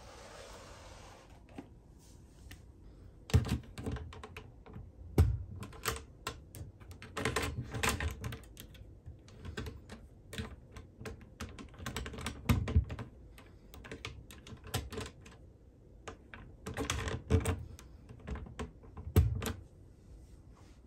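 Combination dial lock on a bedside locker being set: clusters of rapid plastic clicks as the number wheels are rolled, with a few heavier knocks from the lock knob or locker door.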